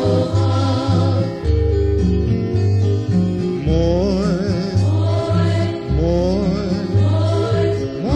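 Music: a voice singing long, wavering held notes over a deep bass line that repeats in even phrases.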